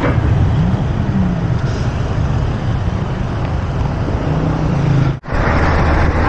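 Road traffic close by: car and truck engines running alongside a moving bicycle, mixed with rushing wind noise. The sound drops out for an instant about five seconds in.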